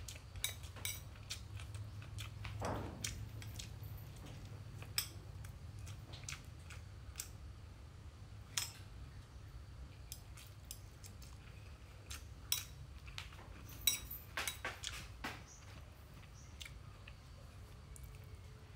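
A metal spoon clinking now and then against a small glass bowl as someone eats, in short, irregular clinks, with soft chewing between them.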